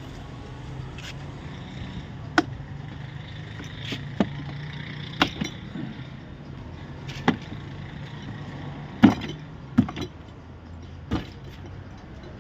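Scattered sharp clicks and knocks as a door trim panel and its release cable are handled and fitted to a Range Rover door, over a steady low hum. The loudest knock comes about nine seconds in.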